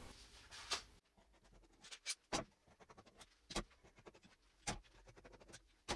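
Faint, scattered short scrapes and clicks about a second apart: squeezed-out wood glue being scraped off along a freshly glued benchtop lamella.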